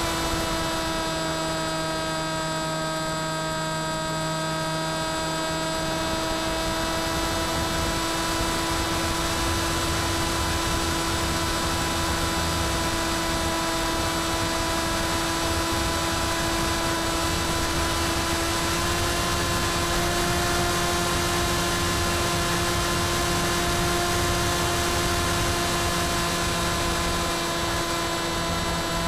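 Electric motor and pusher propeller of an FX-61 Phantom flying wing heard from the onboard camera: a steady whine over wind rush, holding one pitch and stepping up slightly a little past halfway.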